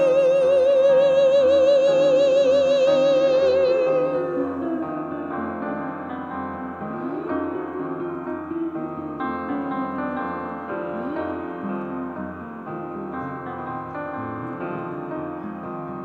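A singer holds one long note with wide vibrato for about four seconds over piano accompaniment. The piano then plays on alone and slowly gets quieter.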